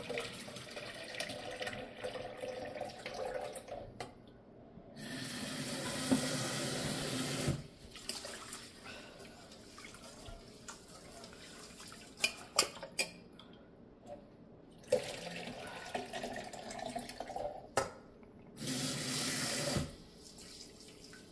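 Kitchen tap running into a cooker pot in two short spells while rice is rinsed by hand, washing off the white starch, with water sloshing and being poured off in between. A few sharp knocks sound partway through.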